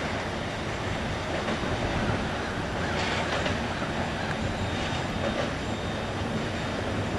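Kansas City Southern train's cars rolling past at steady speed: continuous wheel-on-rail noise.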